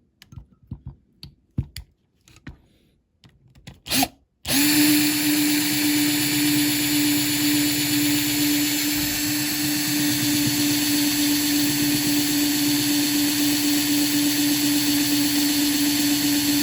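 A few light clicks and knocks of handling. Then, about four and a half seconds in, a small electric drill starts and runs steadily at one even pitch, drilling into the rivet post of a diecast toy van's base to free it.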